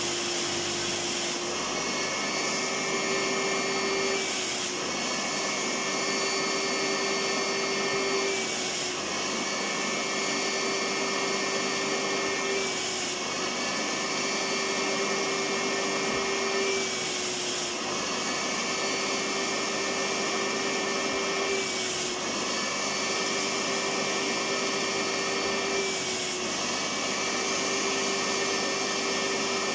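Electric vacuum cleaner running continuously with a steady motor whine. About every four seconds the pitch dips briefly and then rises back.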